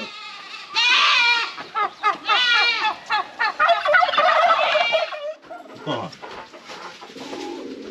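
Domestic turkeys gobbling, several rattling calls close together, dying down after about five seconds.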